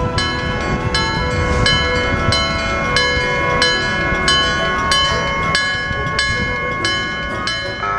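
Electromechanical level-crossing warning bell struck about three times a second, each strike ringing on, over a low rumble.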